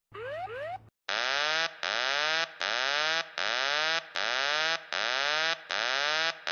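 Aircraft cockpit warning alarm: a few short rising electronic chirps, then from about a second in a buzzy electronic tone that falls in pitch, sounding in pulses just under a second long, about seven times in a row.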